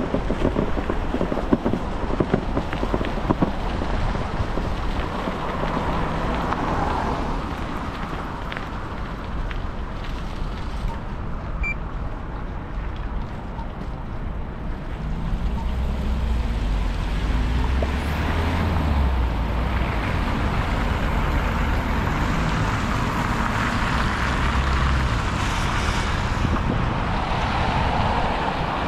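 Wind rumbling on the microphone of a moving bicycle, with road traffic. About halfway through, a motor vehicle's engine grows louder and runs for several seconds, its pitch shifting.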